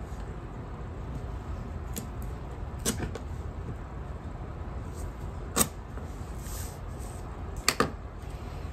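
Light clicks and taps of hands cutting and laying washi tape on a planner page with a craft knife, over a low steady room hum; the loudest clicks come about two thirds of the way in and near the end.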